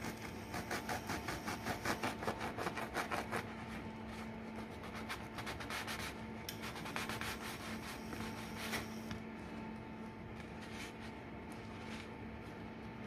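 Knife sawing back and forth through sesame-crusted bread rolls on a wooden cutting board: quick rasping strokes, several a second, heaviest in the first few seconds and again around the middle.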